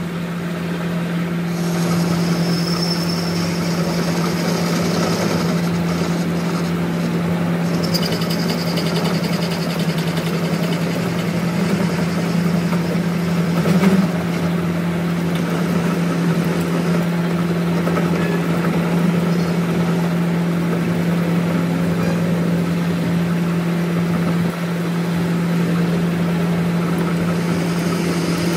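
A machine or engine running steadily with a constant low hum. A higher hiss joins it from just after the start until about eight seconds in, and there is a single short knock about halfway through.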